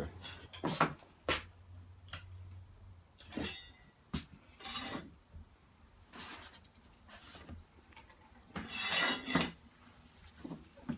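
Scattered clinks, knocks and scrapes of ceramic floor tiles and self-leveling clips being handled and set, with a longer scrape near the end.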